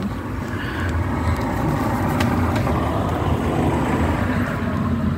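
A car engine running steadily, a low hum with road noise, with two light clicks a little after two seconds in.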